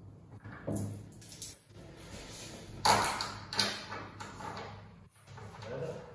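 Irregular knocks and clatter of flat-pack bed parts being handled and fitted together during assembly. The sharpest knock comes about three seconds in.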